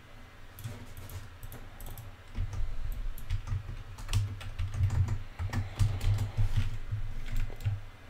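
Typing on a computer keyboard: irregular key clicks, sparse at first and coming thick and fast from about two seconds in.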